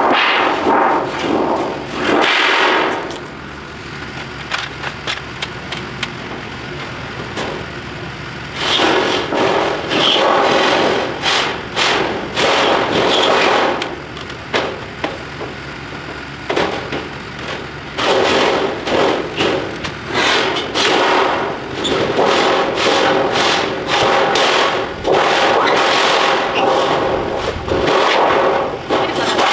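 Metal roofing panels being pried loose and pulled off a wooden patio roof frame: repeated sheet-metal banging, rattling and scraping with thumps, in long loud stretches broken by a couple of quieter pauses.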